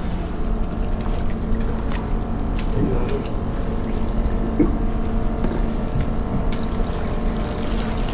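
A fishing boat's engine running steadily, with water noise around the hull. A few sharp clicks come through here and there.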